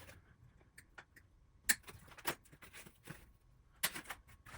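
Wire cutters snipping through plastic zip ties: a few sharp clicks, the loudest about a second and a half in and again near the end, with fainter ticks between.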